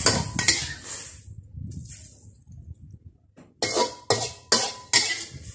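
Cooking utensil scraping and knocking against a metal wok as stir-fried bitter gourd leaves are scooped out onto a plate. A run of scrapes comes at the start, then four sharp scrape-knocks about half a second apart near the end, with a short metallic ring.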